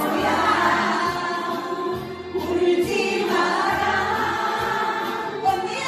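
Music with several voices singing together, the melody held without a break.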